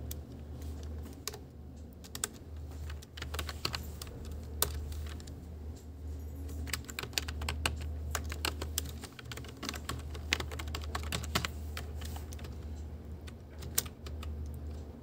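Typing on a computer keyboard: quick keystrokes in irregular bursts with short pauses, over a steady low hum.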